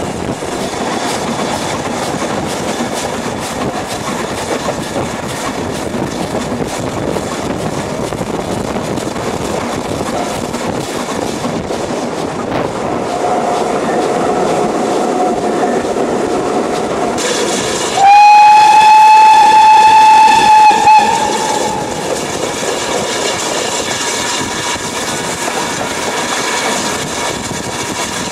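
Steam locomotive running along the line, with a steady rumble and clatter heard close up from its footplate. About two-thirds of the way through, its steam whistle blows loudly for about three seconds, after a softer held tone a few seconds before.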